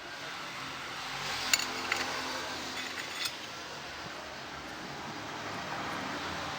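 Small metal parts clinking as they are handled, three sharp clinks in the first half over a steady background hum.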